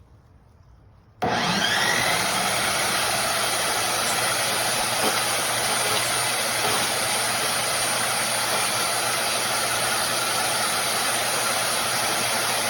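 AIVOLT 15A electric wood chipper shredder switching on about a second in, its motor rising in pitch as it spins up, then running steadily and loudly.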